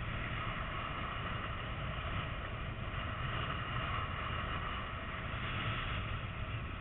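Wind noise on an action camera's microphone during paraglider flight: a steady low rumble with a hiss that swells a little now and then.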